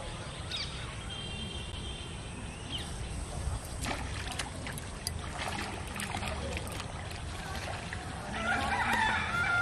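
Pond-side outdoor ambience: a steady low rumble with small birds chirping and a few sharp clicks, then a louder burst of wavering calls near the end.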